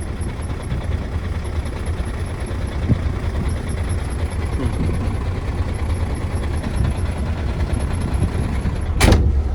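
MAN truck's diesel engine running steadily, heard from the cab, while the driver demonstrates the squeak it makes from the front of the engine when cold, which stops when the clutch is pressed slightly; the owner thinks the problem is behind the engine's front cover. A short, loud burst of noise comes near the end.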